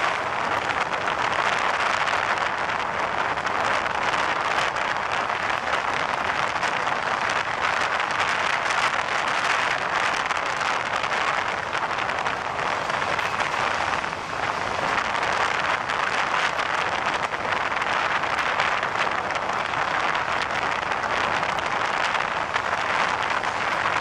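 Steady rush of wind and wheel-on-rail noise from an express passenger train running at speed, heard from its open door, with wind buffeting the microphone. The noise dips briefly a little past the middle.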